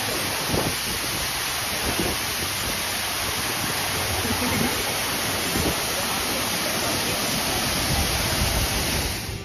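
Artificial waterfall pouring down a rock face into a pool, heard close up as a steady, even rush of falling water.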